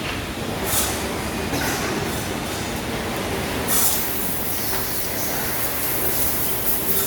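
Chainsaw running under load, a steady dense mechanical noise with a few short hissing spurts.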